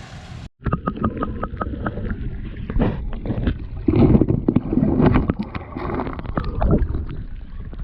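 Water splashing and sloshing, with a quick run of clicks and knocks and wind buffeting the microphone.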